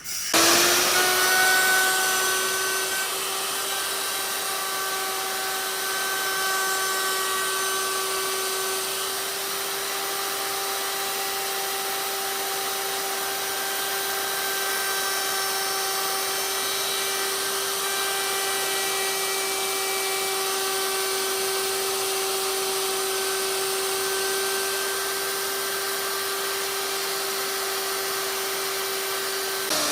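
Handheld electric power tool switched on and spinning up, running at a steady high-pitched whine for about half a minute, then switched off at the very end with its pitch falling as it winds down.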